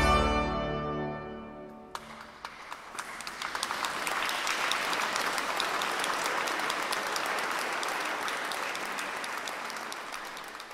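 The final held chord of a choir and brass ensemble fades away in a large church. Audience applause breaks out about two seconds in and keeps going steadily.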